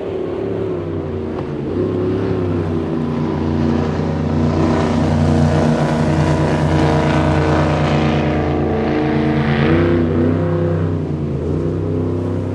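Cigarette offshore powerboat's engines running hard at speed, a steady deep drone. The hiss of hull spray and rushing water swells loudest through the middle, then eases near the end.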